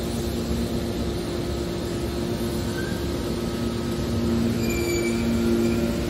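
Hydraulic scrap-metal baler running: the electric motor and hydraulic pump drone steadily with two held tones. It grows a little louder about four seconds in, and a few short high squeals follow near the end.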